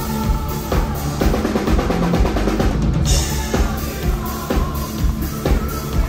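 Power metal band playing live, the drum kit loud and prominent with steady kick and snare hits. A drum fill runs through the middle and lands on a cymbal crash about three seconds in.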